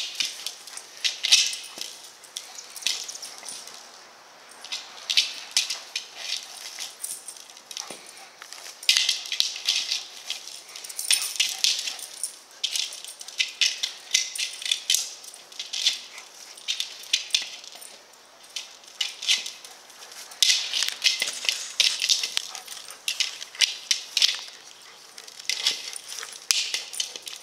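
A Rottweiler scuffling with a hard plastic ball in grass: irregular bursts of clicks, scrapes and rustling as it paws and bites at the ball.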